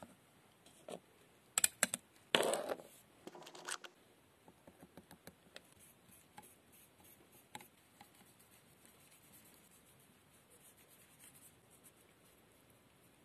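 Workbench handling sounds: a few sharp scrapes and clicks as a glass plate and a steel chisel are set down and shifted on the bench in the first few seconds, then only faint light ticks and brush taps as cold blue is dabbed onto the chisel.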